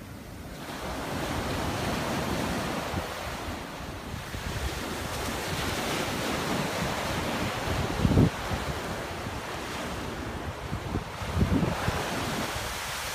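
Small ocean waves breaking and washing up the sand as a steady surf wash. Wind buffets the microphone, with two loud low thumps, one about eight seconds in and one near the end.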